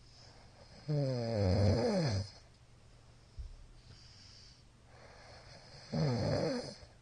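A middle-aged man snoring loudly in his sleep: two snores, the first about a second in and lasting over a second, the second near the end and shorter, each a rough buzzing tone that slides down in pitch. A short faint knock comes between them.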